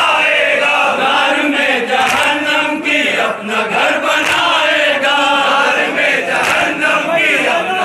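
Large crowd of men chanting together in unison, a Muharram mourning chant (nauha) of the kind recited at matam.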